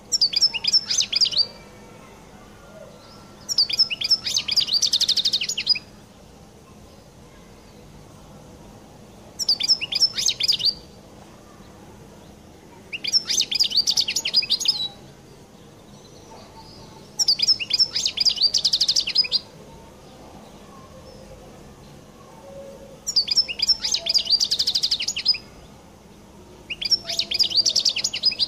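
European goldfinch singing: seven short phrases of rapid twittering trills and chirps, each one to two seconds long, with pauses of a few seconds between them.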